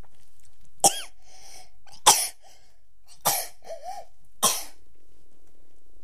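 A toddler coughing four times, about a second apart, with small voiced sounds between the coughs.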